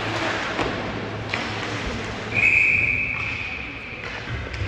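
Referee's whistle: one steady blast of about a second and a half, starting a little past the middle, over a low hum and the odd knock of play.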